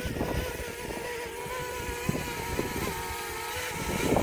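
DJI Mini quadcopter drone hovering: a steady whine of its propellers that wavers slightly in pitch, with strong wind buffeting the microphone.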